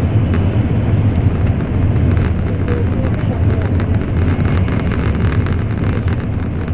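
Steady rumble of an N700 series Shinkansen running at speed, heard inside the passenger cabin, with faint scattered ticks over it.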